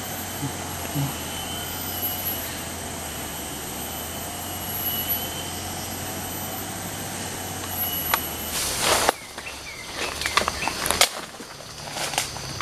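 Steady droning background with high, thin, steady whines. About nine seconds in it gives way to rustling in undergrowth and a run of sharp snaps and cracks.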